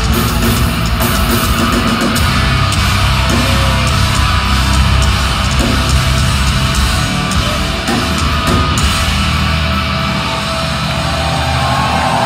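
A metalcore band plays live at full volume, with distorted guitars, bass and drums pounding and crashing cymbals. About nine seconds in, the cymbal hits stop and the low guitar and bass notes carry on.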